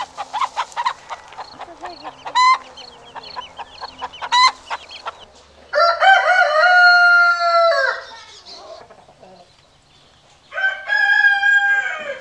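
Chickens clucking in quick short calls, then a rooster crowing twice in long drawn-out calls, one about six seconds in and one near the end.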